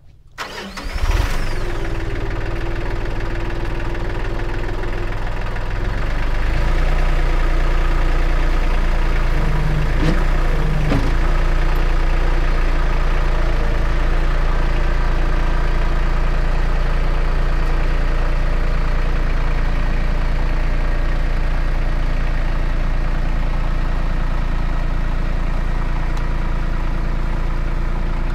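Tractor engine cranking and catching about a second in, then running steadily; at about six seconds it steps up louder as the throttle is raised and holds there while the front loader lifts the truck's generator unit off the frame.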